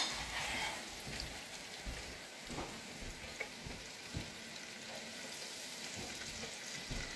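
Double-dredged onions deep-frying in the hot oil of a Swan electric deep fat fryer, with a steady sizzling hiss and occasional small pops.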